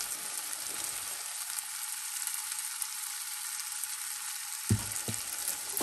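Onion-and-tomato masala with freshly added ground spices sizzling in a nonstick frying pan, a steady hiss. A couple of soft knocks about five seconds in.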